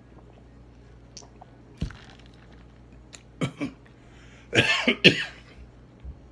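A man coughing: two short coughs, then two louder coughs about half a second apart.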